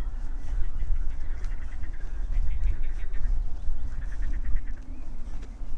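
Birds calling: a run of quick repeated calls about two and a half seconds in and another just after four seconds, over a steady low rumble.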